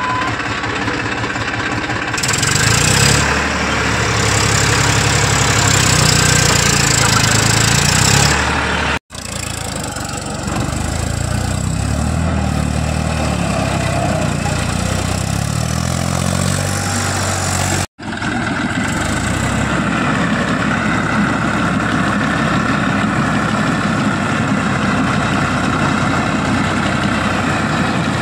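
Tractor diesel engine running as the tractor drives through a flooded canal, water churning around the front wheels. The engine works harder from about two seconds in, then settles to a steadier run.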